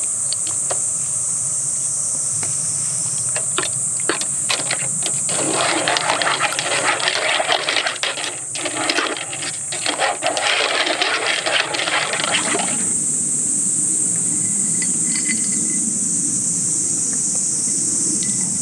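Spoon clicking against a glass jar as tom yum paste is scooped into a pot, then several seconds of sloshing as the soup with clams is stirred. A steady high cicada drone runs underneath.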